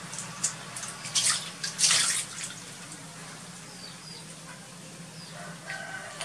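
Water splashing and sloshing in a plastic tub as a macaque swims and ducks under, with several sharp splashes in the first two seconds, then gentle lapping. A few short chirps sound near the end.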